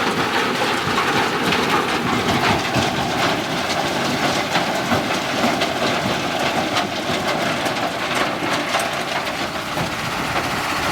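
JCB 3DX backhoe loader at work: a dense, steady rattling noise full of small clicks over an engine note that slowly drops in pitch.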